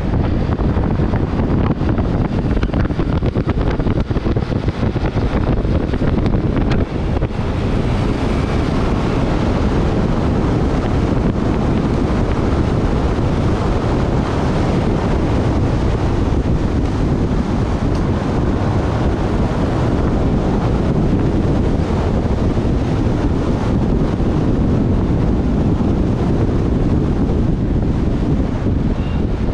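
Steady wind rushing over the microphone of a camera on a moving scooter, with the scooter's engine running underneath.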